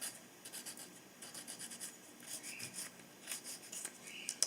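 Quick, irregular rasping and scraping strokes of hand grooming on a Patagonian conure's overgrown beak growth, done with fingernail and nail file rather than a power tool. The strokes come in clusters with short pauses.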